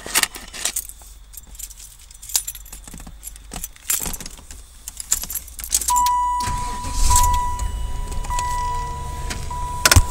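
Keys jangling and clicking at the ignition of a 1995 Impala SS as the key is turned on. About six seconds in, a steady high electronic tone starts, broken by short gaps, over a low hum from the car. There is one sharp knock near the end.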